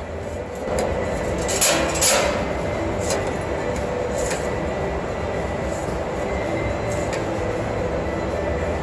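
Steady rumbling machinery noise in a metal shop, with a few sharp clicks or taps, the loudest two about one and a half and two seconds in.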